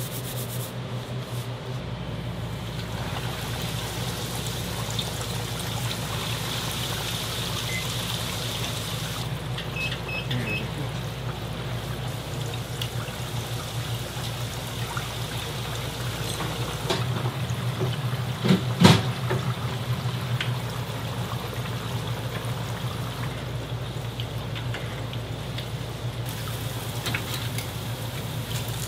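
Breaded pork cutlets deep-frying in a commercial fryer: oil bubbling with a steady hiss over a low equipment hum. A sharp knock sounds once about two-thirds of the way through.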